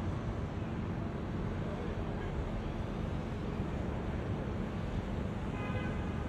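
Steady low outdoor rumble of distant traffic, with wind buffeting the microphone. A brief higher-pitched sound comes in near the end.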